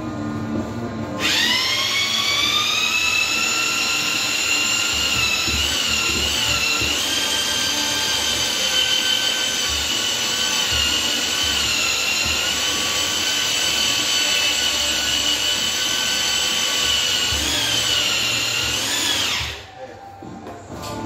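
Corded mixing drill with a paddle, spinning up about a second in and then running steadily as it churns a bucket of mud. Its pitch sags briefly a couple of times under load, and it cuts off shortly before the end.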